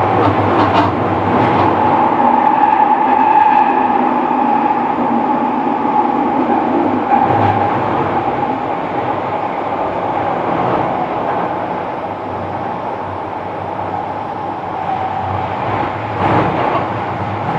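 Kobe City Subway 6000 series train (Hitachi hybrid-SiC drive) under way: a steady rumble of wheels and running gear with a steady hum, and a few short knocks from the track.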